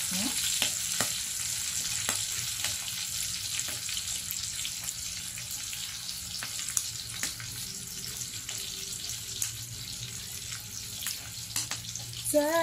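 Ham slices and pork belly sizzling in a grill pan: a steady hiss with frequent small crackling pops.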